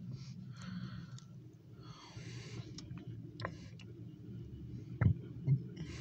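Steady low hum heard from inside a car cabin, with soft breathy hisses close to the microphone and two short thumps about five seconds in, about half a second apart.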